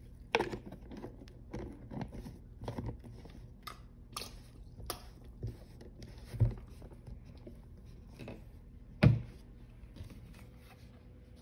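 Irregular handling noises of hands working on a painting table: light taps, knocks and crinkling of paper towel and paper, with a sharp knock about half a second in and a louder thump about nine seconds in.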